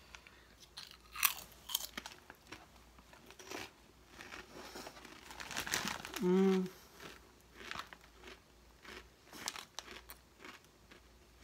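Ruffles Double Crunch Hot Wings ridged potato chips being bitten and chewed, with irregular crisp crunches. About six seconds in, the eater gives a short hum, the loudest sound.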